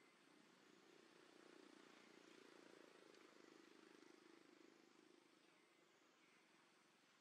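Near silence with a faint, distant engine drone that swells and then fades away.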